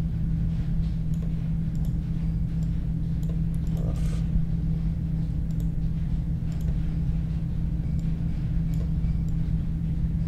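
Steady low hum, with a few faint clicks scattered through it.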